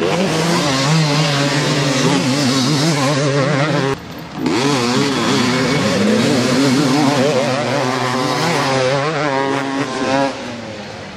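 Several 250 cc two-stroke motocross bikes revving hard through a corner, their engine pitch rising and falling with the throttle and gear changes. The sound briefly drops about four seconds in, then fades near the end as the bikes pass.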